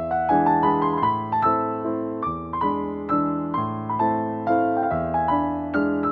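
Background piano music: a calm melody of struck notes over sustained chords, a few notes a second, each note fading after it is played.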